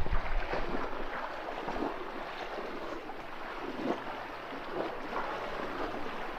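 River water flowing over stones, a steady splashing rush with a few louder splashes, and wind buffeting the microphone at the very start.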